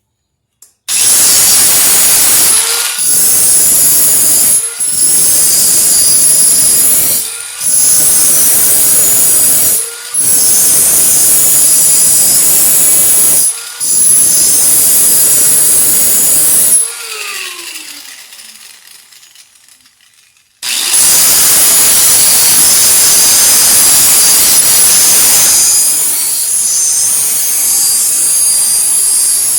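Electric grinder grinding down the outside of a steel 22 mm socket: a loud high whine over rough grinding noise, with about five brief drops. About 17 seconds in it is switched off and spins down with a falling pitch, then starts up again about 21 seconds in.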